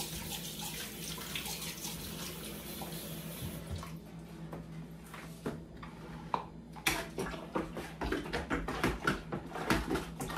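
Kitchen tap running into a sink as something is rinsed under it, shutting off a little over a third of the way in. Then a run of light clicks and knocks as a plastic juice pitcher is handled.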